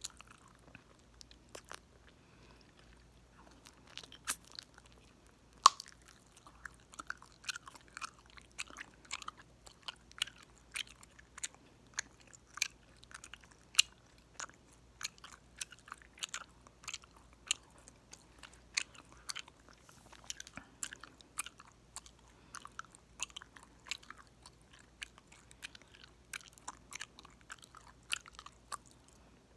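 Gum chewed right at the microphone: a steady run of wet, sharp clicks and pops, about one or two a second. The loudest pop comes about six seconds in.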